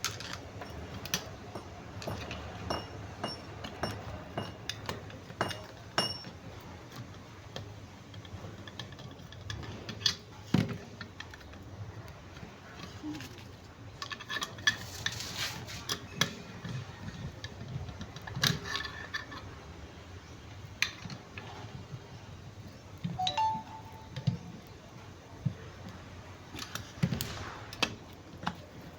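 Metal alternator parts and hand tools clinking and knocking against each other during reassembly: irregular sharp clicks and knocks, a few in the first six seconds ringing briefly.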